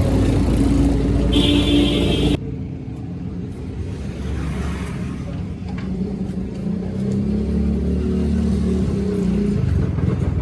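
Motorcycle engine running. About two seconds in, the sound drops abruptly to a quieter low rumble, which swells a little later on.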